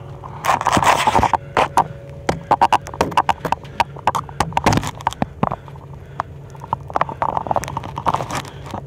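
Irregular knocks, clicks and scraping of the camera being handled and bumped close against aluminium rails and hardboard, over a low steady hum.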